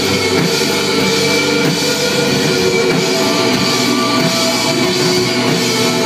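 Live rock band playing loudly without a break: electric guitars, bass guitar and a drum kit.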